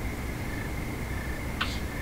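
Night chorus of crickets: a steady high trill with regular chirps woven through it, over a low rumble. About one and a half seconds in, a short, higher call cuts across the chorus.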